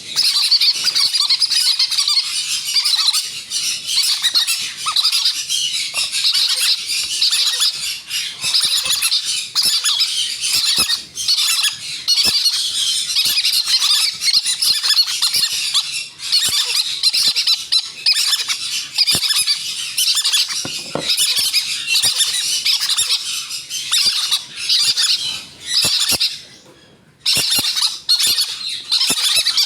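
Green-cheeked conure chicks squawking almost without pause, a loud, raspy, hissing chorus of the begging calls they give while being hand-fed. It breaks off briefly near the end.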